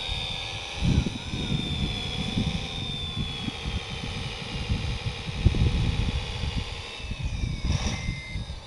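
Motors of a 1/14-scale RC Komatsu WA470-6 wheel loader whining as it drives and lifts its bucket, the pitch sliding slowly down, over gusts of wind rumbling on the microphone. Short reversing beeps start near the end.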